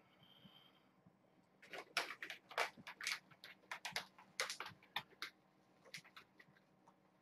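A plastic bag crinkling and rustling, a quick irregular run of sharp crackles starting about a second and a half in and thinning out near the end.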